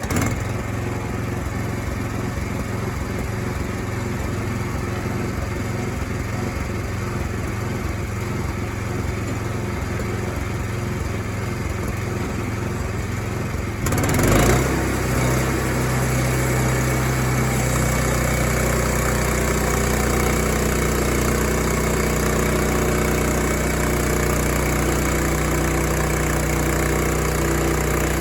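A small engine running steadily, of the kind that powers a sawmill or tractor. About halfway through there is a knock, and after it the engine runs louder and steadier.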